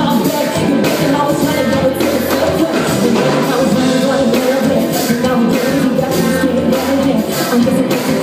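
Live pop band playing, with drum kit and electric bass, and a woman's voice singing into a microphone over it.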